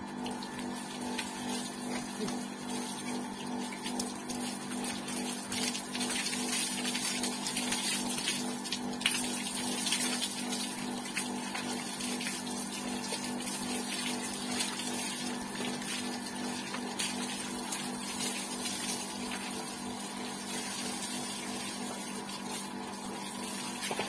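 Electric water pump running with a steady hum, while water from a garden hose sprays and splashes onto a motorcycle.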